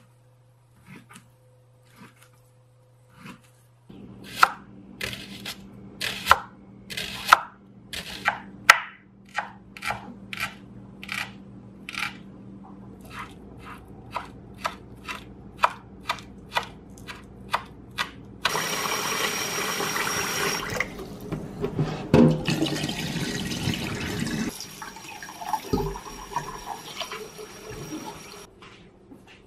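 Kitchen knife work followed by running water: a few soft cuts, then a cleaver chopping scallions on a wooden cutting board in sharp, regular strokes about two a second. About eighteen seconds in, the chopping gives way to a kitchen tap running water into a bowl in the sink for about ten seconds, louder at first, then softer.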